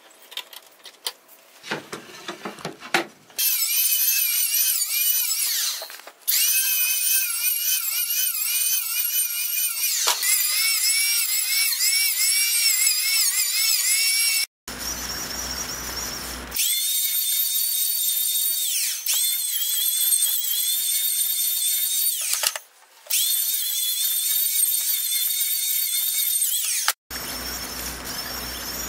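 Handheld electric planer running, a loud high whine whose pitch wavers as it cuts along a sassafras paddle shaft, stopping and starting again several times. Before it starts there are a few light knocks and clicks.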